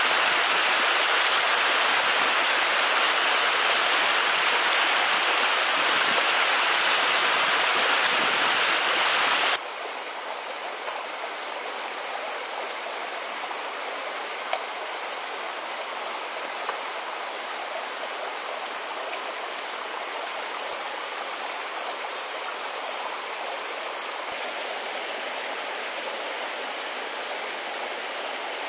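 Small waterfall pouring over rock into a shallow forest stream, a steady rushing splash. About ten seconds in it drops suddenly to the softer, steady flow of the stream's shallow water.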